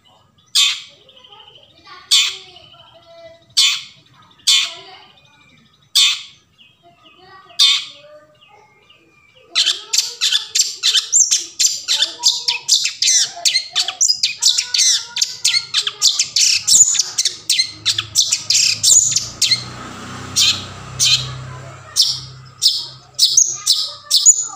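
Long-tailed shrike (cendet) giving single harsh, scratchy calls about every second and a half, then from about ten seconds in breaking into a fast, dense chattering song of rapid notes.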